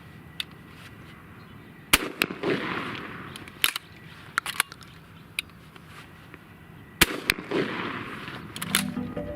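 Shotgun firing twice, about five seconds apart, each shot followed by a short noisy tail, with several sharp clacks in between and after as the Alofs repeater loading system cycles.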